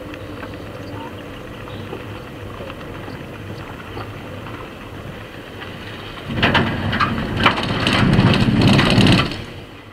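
Car tyres running on a gravel road with steady road noise, then about six seconds in a loud rattling rumble of about three seconds as the wheels cross a metal cattle guard grid, fading away at the end.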